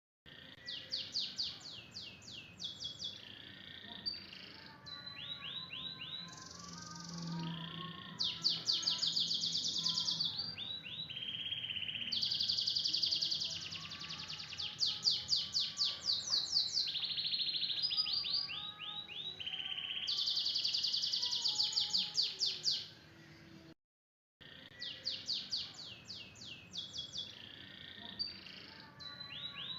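Domestic canary singing a long, loud song of fast rattling trills and rolls, phrase after phrase with hardly a pause. These are the rapid-fire 'tembakan' phrases canary keepers prize. The sound cuts out completely for about half a second a little before the last six seconds.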